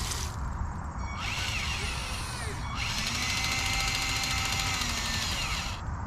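Small electric motor of a radio-controlled model running in two spells, about a second and a half and then about three seconds, with a whirring whine that glides up and down in pitch as it works.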